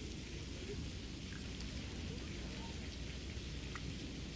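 Steady outdoor background noise: a low rumble and hiss, with a few faint clicks.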